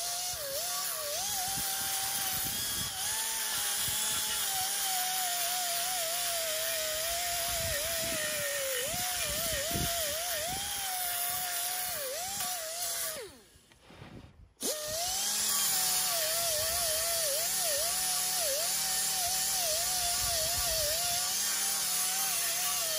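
Pneumatic right-angle grinder with an 80-grit Scotch-Brite pad, scouring surface rust off an engine cylinder sleeve: a steady high whine with an air hiss, its pitch dipping again and again as the pad is pressed onto the metal. It stops about 13 seconds in and starts again a second and a half later.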